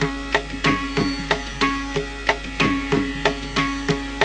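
Instrumental break in an Indian devotional song: hand-drum strokes at about three a second, the low drum's pitch sliding down after many strokes, over held melodic accompaniment.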